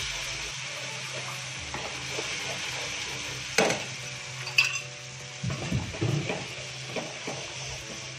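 Steel ladle stirring thick yogurt-and-besan gravy in a hot nonstick kadai over a steady sizzle. The gravy is stirred nonstop so the yogurt does not split. The ladle clinks sharply against the pan twice about halfway through, then knocks lightly a few more times.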